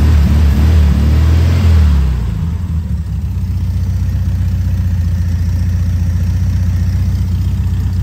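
1972 VW Beetle's air-cooled flat-four engine revving, then dropping back about two seconds in to a steady, even idle. It runs smooth with no misfire or backfire, its shaking cured by the ignition fixes.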